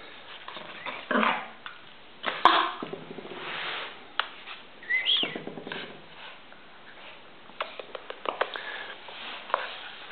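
A small shaggy dog playing with a rubber ball on a tile floor: irregular sniffing and snuffling, with scattered sharp clicks and knocks. A short high squeak comes about five seconds in.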